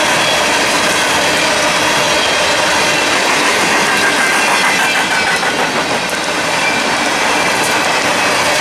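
Empty steel coal hopper cars of a freight train rolling past: steady rattle and clatter of steel wheels over the rails.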